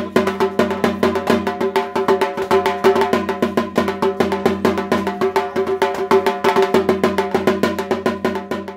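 A dhak, the Bengali barrel drum, beaten with thin sticks in a fast, steady rhythm of several strokes a second, with a ringing tone held under the strokes.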